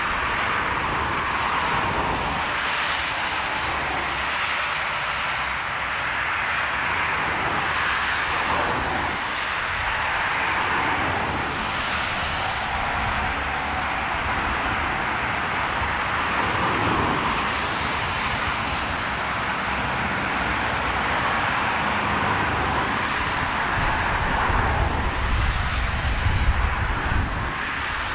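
Airliner engines running steadily as the plane comes in to land in a strong crosswind, with gusts of wind rumbling on the microphone, heaviest near the end.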